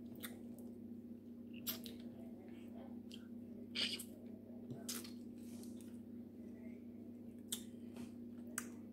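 Crab legs being picked apart by hand and eaten: scattered short cracks and clicks of shell, the loudest about four seconds in, with wet squishing and chewing. A steady low hum runs underneath.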